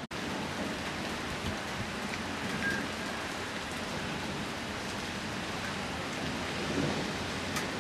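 Heavy rain falling steadily in a thunderstorm, an even hiss, after a brief dropout at the very start.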